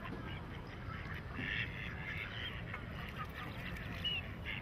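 Mother duck quacking among the short, high peeps of her ducklings, over a steady low rumble.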